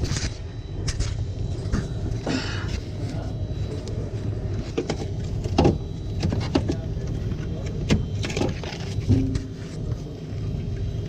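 Steady low machinery hum with irregular clicks and knocks of equipment being handled.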